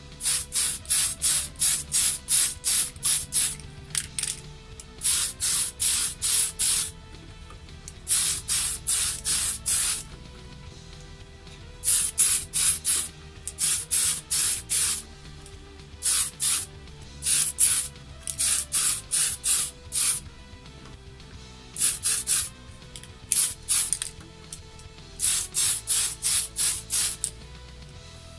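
Aerosol spray paint can sprayed in short puffs onto a plastic RC car body shell, hissing in runs of about three quick bursts a second with pauses between the runs.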